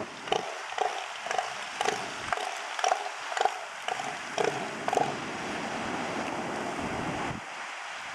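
Northern elephant seal giving its pulsed threat call, about two deep pulses a second, while rearing up with its head raised in a dominance display. The pulses give way near the five-second mark to a longer rasping stretch that cuts off abruptly.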